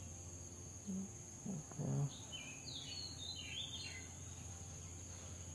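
Outdoor background: a small bird chirping a quick run of falling notes over a steady high insect drone. A few short, low, hum-like sounds come about a second or two in, the loudest near the middle.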